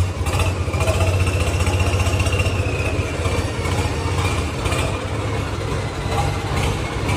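Swaraj tractor's diesel engine running steadily with a fast, even low rhythm as the tractor is driven.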